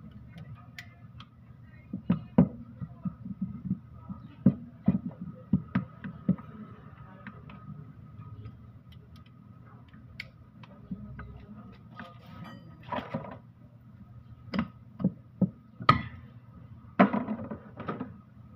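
A steel wrench and bar clink and knock against the metal housing of a Canter truck's gearbox as its bolts are worked loose, in irregular sharp clanks. Two short scraping sounds come near the end.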